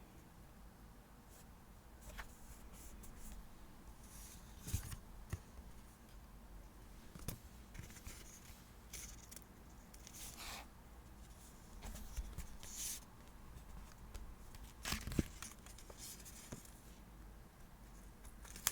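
Paper-craft handling sounds while decorating a diary: paper and sticker sheets rustling and being torn or cut, in short scattered rustles with a few sharp clicks about 5, 7 and 15 seconds in.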